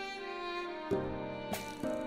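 Slow, sad background music with strings, the notes growing fuller about a second in.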